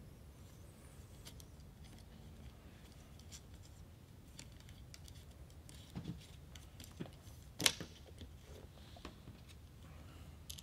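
Scattered light clicks and taps of small screws and metal parts being handled and fitted by hand into an FX Impact air rifle's top block, with one sharper click about two-thirds of the way through.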